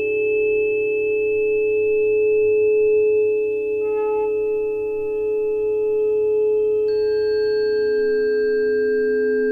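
Tuning forks ringing with several steady, overlapping pure tones. Fresh strikes about four and about seven seconds in add new, higher tones over the ones still sounding.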